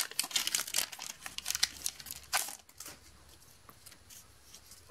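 Pokémon trading card booster pack wrapper being torn open by hand, crackling and crinkling in short bursts, dying down to faint handling after about two and a half seconds.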